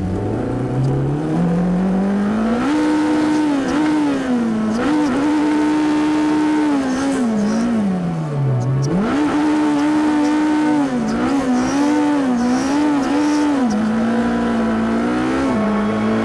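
Indy Pro 2000 race car's engine revving up from low, held high with repeated dips and one deep drop about halfway, then settling into a steady note near the end, as the car recovers from a spin onto the grass and drives back onto the track.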